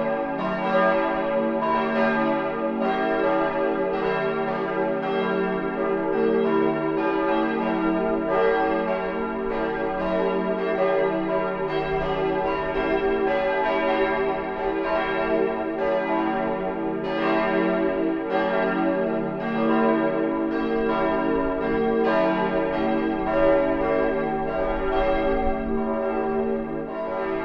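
Full peal of church tower bells, all bells swinging and ringing together as the call to the Sunday service. The strikes overlap in a dense, continuous run with no break.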